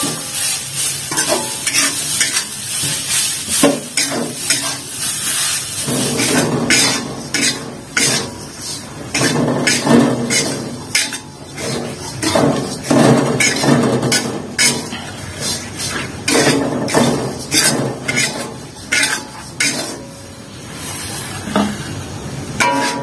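Metal spatula stirring and scraping grated coconut around an aluminium wok as it dry-roasts for serundeng: a continuous rustling scrape with frequent sharp clicks of the spatula against the pan.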